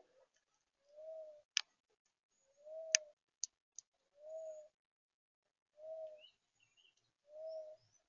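A dove cooing: five soft, low single coos repeated evenly about every one and a half seconds, with a few sharp clicks in between.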